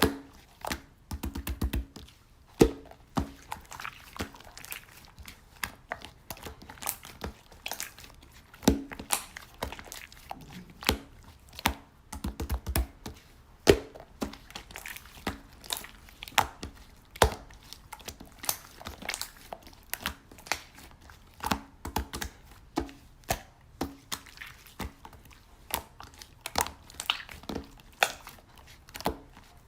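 Slime being squeezed and poked by hand, giving a dense, irregular run of small sticky clicks and pops.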